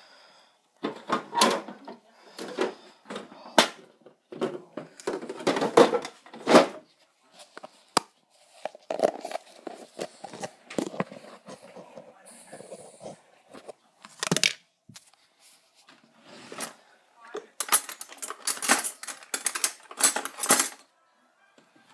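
Kitchen items being rummaged and handled: a string of irregular clatters and knocks, in clusters with short pauses, mixed with the rub and thump of a handheld phone being moved about.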